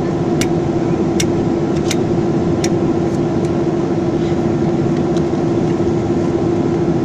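Cabin drone of a Boeing 737-300 with its CFM56 jet engines idling while the airliner stands still: a steady rushing hum with one strong steady tone. A run of sharp ticks comes about every three-quarters of a second in the first half.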